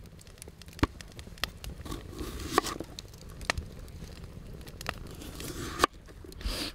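Kitchen knife cutting a broccoli stem on a wooden cutting board: about six sharp clicks of the blade meeting the board, mixed with crisp crunching as pieces of the stem are cut and pulled away.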